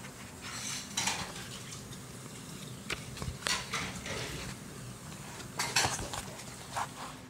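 A paperback picture book being opened and its glossy pages turned and handled: irregular paper rustles and light handling knocks, a few sharper ones in the second half.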